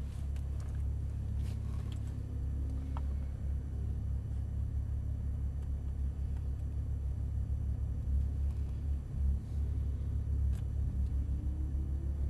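Porsche 991 Turbo's flat-six engine idling steadily with the car at a standstill, a low, even rumble heard from inside the cabin.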